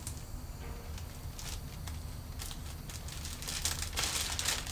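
Clear plastic plant sleeve crinkling in short irregular crackles as an anthurium is pulled out of it, busiest near the end, over a steady low hum.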